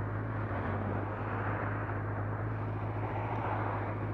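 Motorcycle engine idling steadily with a low, even hum while the bike stands waiting. A hiss over it swells twice, about a second and a half in and again near the end.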